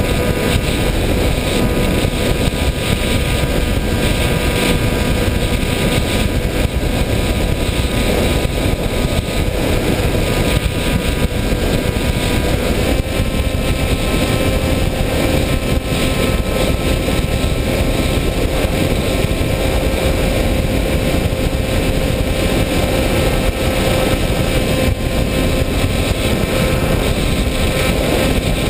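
Onboard sound of an FPV radio-controlled model aircraft in flight: a steady motor and propeller drone under heavy wind rush, with a held tone that shifts slightly partway through.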